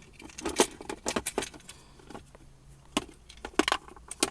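A series of sharp, irregular clicks and knocks as the OBD-II diagnostic link connector and its small screws are handled and worked loose from the mount.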